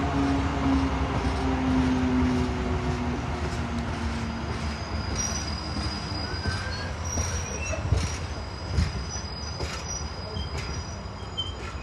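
Freightliner Class 70 diesel locomotive's GE PowerHaul V16 engine pulling away, its note dropping slightly and fading over the first few seconds. Loaded container wagons follow, rolling past with a steady rumble, a faint high wheel squeal and a few sharp knocks of wheels over rail joints.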